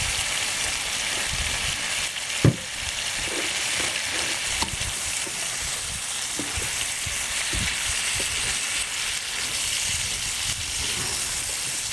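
Sliced octopus and vegetables sizzling steadily in hot oil in a pan, with a utensil stirring and knocking against the pan now and then, one sharp knock about two and a half seconds in.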